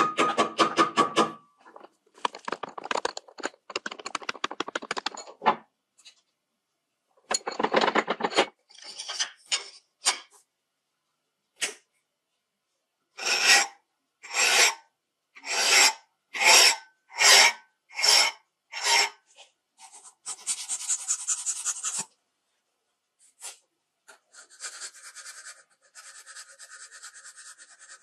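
Hand file rasping across the steel tip of a slotted screwdriver bit, in runs of quick strokes and then about ten slower strokes, one every half second or so. Near the end it gives way to a steadier rubbing as the bit is worked on a flat block.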